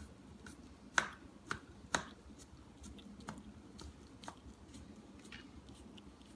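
Dog eating ice cream, its mouth making a string of short, sharp smacking clicks: three loud ones close together about a second in, then fainter ones spread out.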